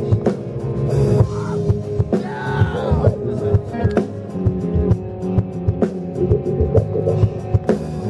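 Live rock band playing: a drum kit hitting steadily under electric guitars, with a male lead vocal singing over it.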